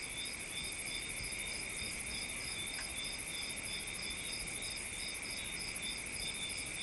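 Chorus of crickets chirping steadily, several high trills at different pitches layered over one another, some of them pulsing.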